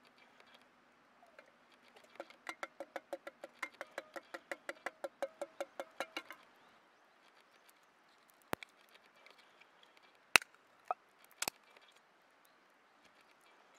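Curry being emptied from a tin can into a metal camp pot: a quick, even run of ringing metal strokes, about six a second, for some four seconds. This is followed by a few sharp separate clicks from a ring-pull can being opened, the loudest about ten seconds in.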